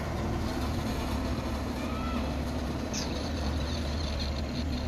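Steady low diesel engine rumble from a distant wheel loader working a construction site.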